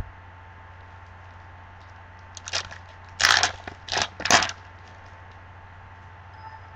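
Clear plastic wrapper of a trading card pack crinkling and tearing as it is ripped open, in a handful of short crackly bursts about halfway through.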